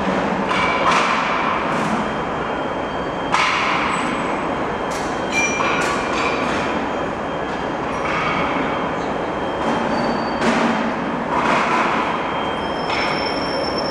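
Rotary tube filling machine running: a steady mechanical whir with irregular metal clanks and knocks.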